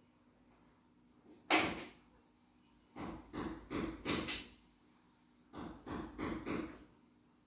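Clicks and knocks of hands working on an embroidery machine: one sharp knock about one and a half seconds in, the loudest, then two quick clusters of smaller clicks and knocks around three to four seconds and near six seconds.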